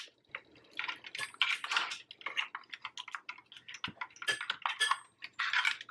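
Plastic parts of a ring light stand clicking and rattling as the phone-holder bracket is twisted onto it: a run of irregular light clicks and taps.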